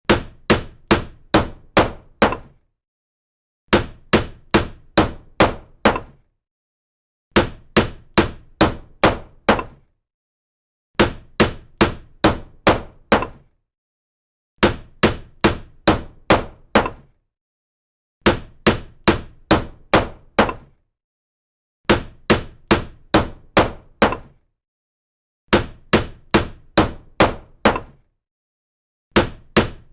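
Hammer-blow sound effect: a run of about six sharp hammer strikes at roughly two a second, each with a short ring. The run repeats as a loop about every 3.7 seconds, with silence between runs.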